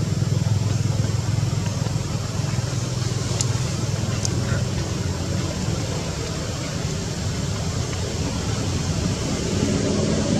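Steady low rumble of outdoor background noise with a hiss over it, with a couple of faint, brief high ticks about three and four seconds in.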